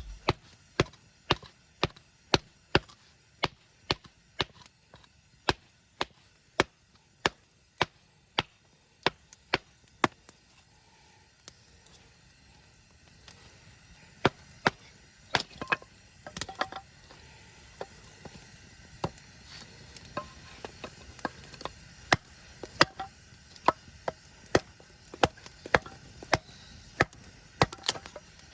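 Repeated sharp knocks of something being struck, about two a second for the first ten seconds, then sparser and irregular.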